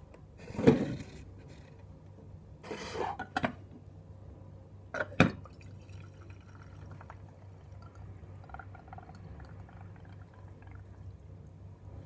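A clear plastic bottom-dispensing tea maker is handled, with a loud burst of handling noise under a second in and knocks around three seconds, then a sharp clack about five seconds in as it is set onto a ceramic mug. After that the brewed tea drains faintly through the tea maker's bottom valve into the mug.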